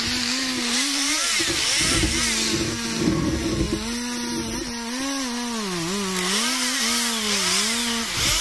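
Two-stroke chainsaw running at high revs, its engine pitch dipping and recovering several times as the chain bites into the wood and is eased off.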